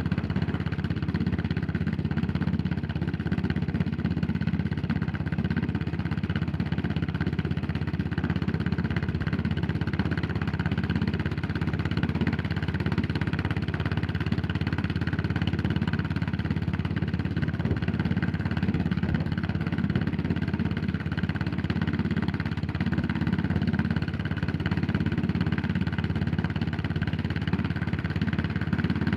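Yamaha SR400's single-cylinder four-stroke engine running steadily, a dense even pulsing with no big revs.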